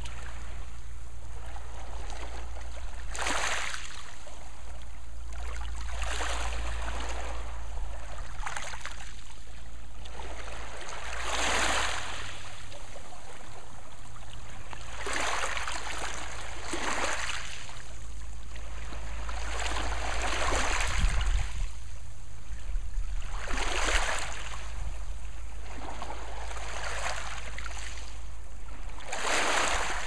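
Gentle sea waves lapping and washing over a pebble-and-rock shore, each wash swelling and fading every two to three seconds, over a steady low rumble.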